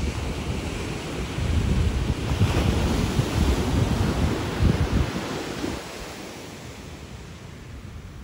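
Ocean surf breaking on a beach, with wind buffeting the microphone. The wind gusts ease about six seconds in.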